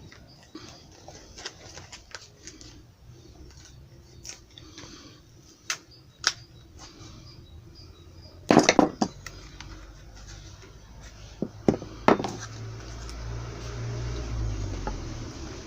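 Small clicks and knocks of tools being handled at a shoe-repair bench, with a quick run of loud knocks about halfway through and two more sharp knocks a few seconds later. A low hum swells near the end.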